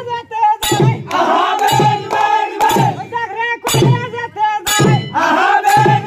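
A group of men singing a boat song (boitha maro) together, with a strong beat struck about once a second.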